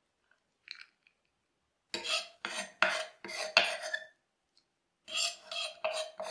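A kitchen knife chopping fresh cilantro on a wooden cutting board, each stroke a short rasping cut. A quick run of about five cuts about two seconds in is followed by a pause of about a second, then about four more.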